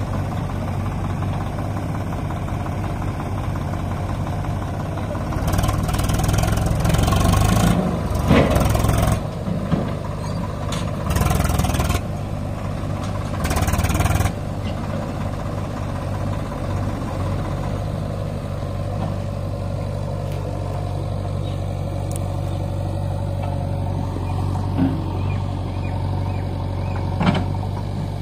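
Diesel engines of a Swaraj 744 FE tractor and a JCB backhoe loader running steadily at low revs. Three short, louder bursts of noise break in between about six and fourteen seconds in.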